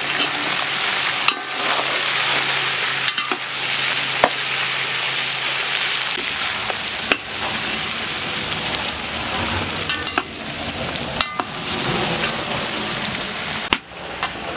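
Meat frying and sizzling in a large metal pot over a wood fire, stirred with a ladle that knocks and scrapes against the pot's side a few times.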